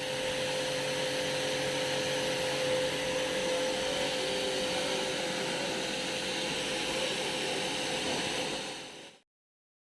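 Electric pressure washer running steadily with a constant motor hum under the spray hiss, cutting off suddenly about nine seconds in.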